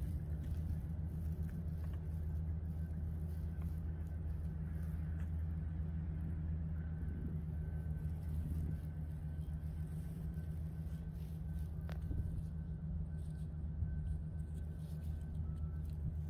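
Steady low rumble of the surrounding city, with a faint thin tone above it.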